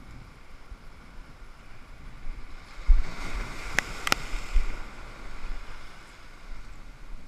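Surf breaking and washing over shoreline boulders, swelling into a loud surge about three seconds in and easing off after five, with low wind thumps on the microphone. Two sharp clicks come close together in the middle of the surge.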